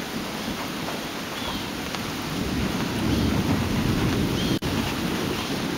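Steady rain with a low rumble of thunder that swells in the middle. The sound cuts out for an instant about four and a half seconds in.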